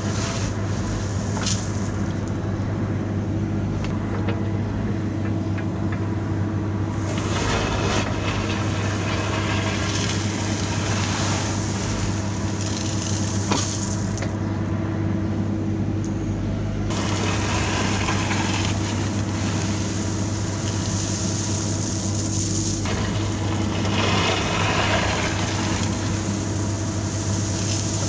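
Diesel engine of compact construction equipment running steadily, with stretches of louder hissing noise coming and going over it.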